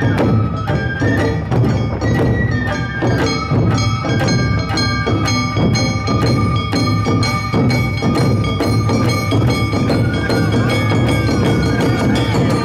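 Awa odori festival band playing: shinobue bamboo flutes carry a held, wavering melody over steady drum strokes from carried barrel drums, with a metal gong chiming along.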